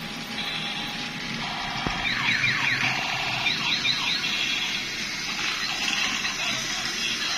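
Electronic siren and beeping sound effects from battery-powered transforming toy robot cars as they change from car into robot. Repeated beeps, with fast up-and-down siren sweeps from about two to four seconds in.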